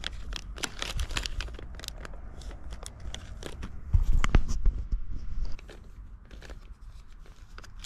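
Close rustling and crinkling handling noise as fishing line and tackle are worked by hand, with scattered sharp clicks. About four seconds in, a louder low rumble comes in and cuts off suddenly about a second and a half later.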